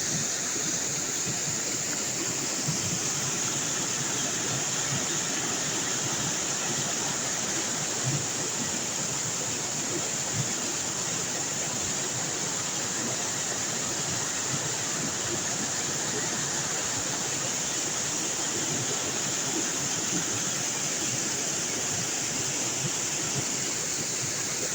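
Waterfall: the steady, even rush of falling water, unchanging throughout.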